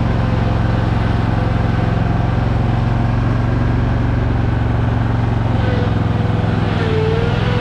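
Zero-turn mower engine running steadily. Over the last couple of seconds a whine rises and falls in pitch.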